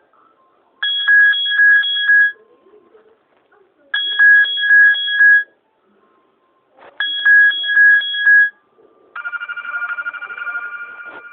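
Oppo mobile phone ringtones. An electronic pulsing ring sounds three times in bursts of about a second and a half. About two seconds before the end a different ringtone starts, a rapid trilling ring that slowly fades.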